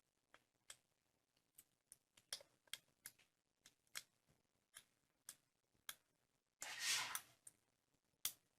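Faint scattered clicks and taps, a dozen or so spread irregularly, with one short rushing burst of noise a little under a second long about seven seconds in, the loudest sound.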